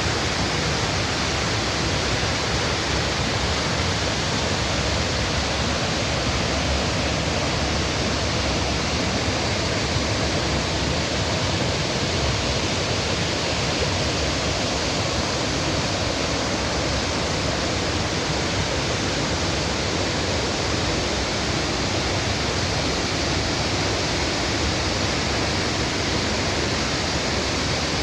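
A waterfall, its falling water making a steady, even noise.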